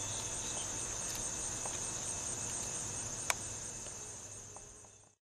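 Steady, high-pitched chirring of crickets in the garden, with a single sharp click about three seconds in; the sound fades out near the end.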